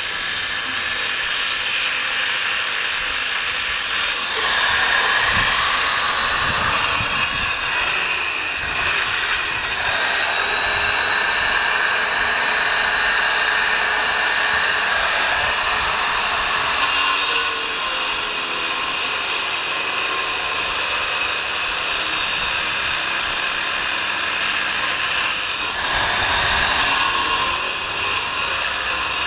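Angle grinder with a segmented diamond blade cutting through concrete paving blocks: a continuous grinding whine, its sound shifting several times as the blade bites into the stone and eases off.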